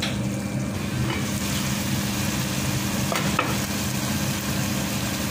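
A pot of chicken and potato stew simmering and sizzling as its sauce cooks down, over a steady low hum. A couple of light clicks come about a second in and again past three seconds.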